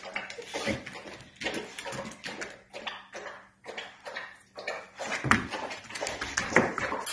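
Alapaha blue blood bulldog sniffing and nosing at a wire puppy pen: short irregular snuffles and rustles, with two louder knocks about five and six and a half seconds in.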